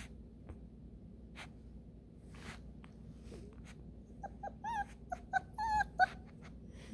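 Bluetick coonhound puppy whimpering: a quick string of about seven short, high, wavering whines about four seconds in, after a few faint ticks.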